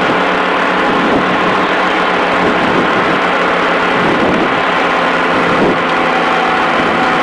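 Quad City Challenger II ultralight's engine and propeller running steadily. The engine is overheating with a high cylinder head temperature reading, which the pilot suspects comes from a broken fan belt.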